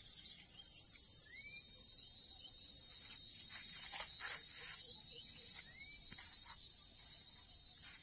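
Insect chorus in scrub forest: a steady, high, continuous buzz. Two short arched chirps cut through it, about a second in and again around six seconds in.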